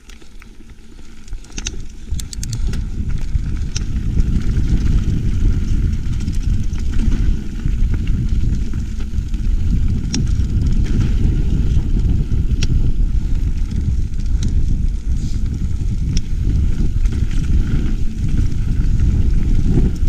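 Mountain bike riding fast down a gravel trail: heavy wind noise on the GoPro microphone over tyre rumble, with scattered sharp clicks and rattles from stones and the bike. It builds over the first few seconds as speed picks up.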